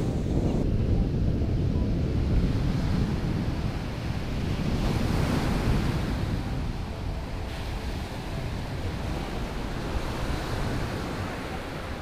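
Ocean surf breaking on the shore, swelling and easing, with wind rumbling across the microphone.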